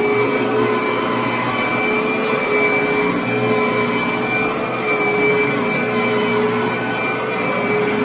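Upright vacuum cleaner running steadily as it is pushed over carpet: a constant motor whine over a rushing airflow.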